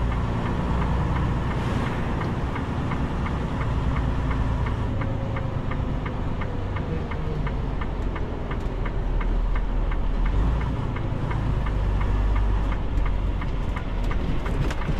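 Semi truck's diesel engine running at low speed, heard inside the cab, with a turn signal ticking steadily several times a second as the truck turns at a junction.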